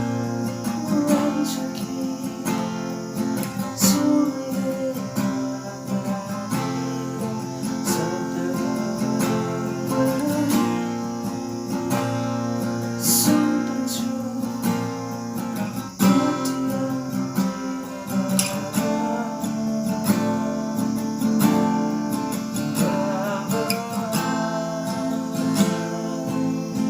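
Instrumental music led by a strummed acoustic guitar, playing steady chords.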